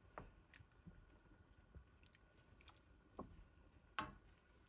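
Very quiet, soft wet sounds of pan-fried chicken pieces tipped from a strainer into curry sauce in a wok, then a wooden spatula stirring. A few faint knocks, the clearest near the end.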